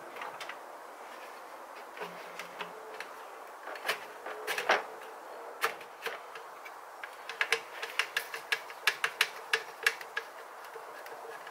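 Hand work in a car's engine bay: sharp clicks and clinks of metal parts and tools being handled, a few scattered at first, then coming quickly one after another in the second half.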